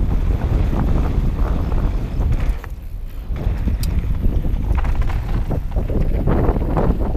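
A downhill mountain bike riding fast down a trail: tyres rattle over wooden boardwalk planks, then crunch over gravel, while the frame and chain clatter. Wind buffets the camera microphone throughout, with a brief quieter spell about three seconds in.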